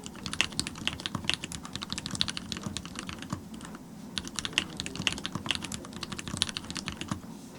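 Mechanical keyboard being typed on fast: Cherry MX Black linear switches with custom 70 g springs on a brass plate in a TX-75 v2, the Leopold keycaps clacking in quick runs. There is a short pause about three and a half seconds in, and the typing stops just before the end.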